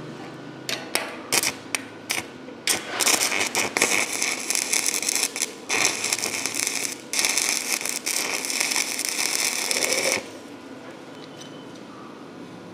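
Stick (arc) welding on a steel stair tread plate: a few short crackles as the electrode strikes the arc, then the arc crackles and sputters steadily for about seven seconds with brief breaks, cutting off about ten seconds in.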